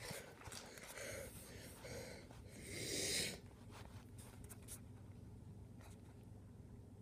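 A cat sniffing at bits of dry food: three short breathy rushes about a second apart, the last and loudest about three seconds in, followed by a few faint ticks.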